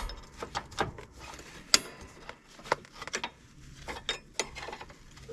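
Small screwdriver prying and scraping at the locking clip on a riding mower deck's hanger pin, metal on metal: a string of irregular sharp clicks and scrapes, the loudest two a little under two seconds in and just under three seconds in.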